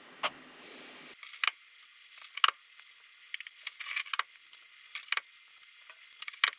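Raw eggs being cracked one after another into a plastic mixing bowl: a string of sharp cracks of eggshell, some in quick pairs.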